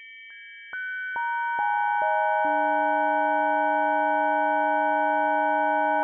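Sustained synthesized model of a 9½-pood bell's partials: steady pure tones enter one at a time from the highest down, each with a faint click, and build into the full bell chord. The lowest partial comes in about two and a half seconds in. All the tones then hold together without any decay, unlike a struck bell.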